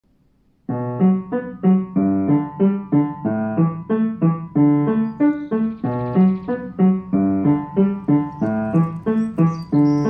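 Background piano music: a steady run of notes, each struck and fading, starting a little under a second in.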